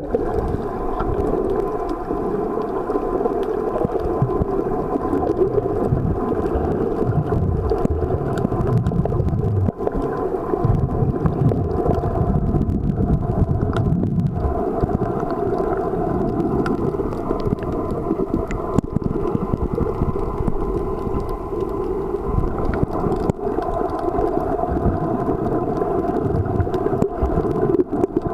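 Underwater noise picked up by a submerged camera: a steady, muffled rumble of water with a faint steady hum running through it.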